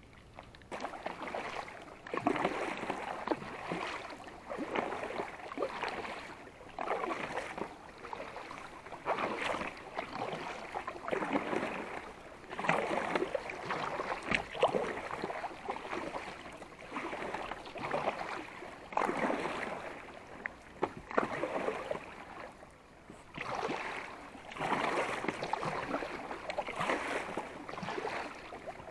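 Water splashing and sloshing around a kayak in repeated surges about every one to two seconds.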